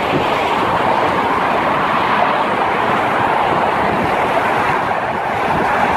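Steady rush of road traffic passing close by: tyre and engine noise from cars on the bridge roadway, even and unbroken.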